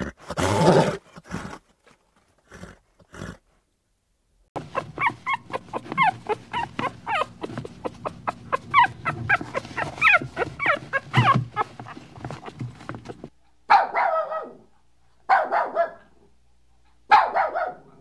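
A puppy yipping and whining in a long run of quick, high squeaks, then giving three louder barks about a second and a half apart near the end. A horse snorts briefly at the very start.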